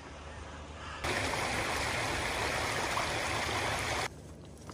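Shallow, rain-swollen muddy stream rushing over stones, loud and close. It starts abruptly about a second in and stops abruptly about three seconds later, with a fainter steady hiss before and after.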